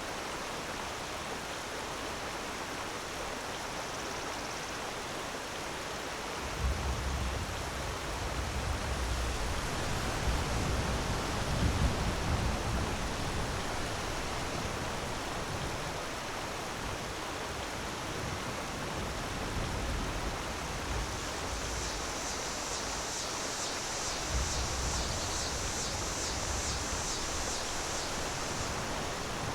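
Waterfall: a steady rush of falling water, with a low rumble joining in about six seconds in and a brighter hiss near the end.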